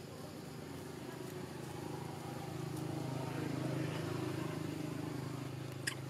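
A steady low engine-like hum that swells toward the middle and then eases off, with a brief sharp high click or chirp near the end.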